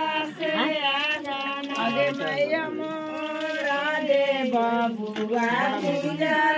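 Several women singing a folk wedding song together, their voices overlapping in a steady, continuous melody.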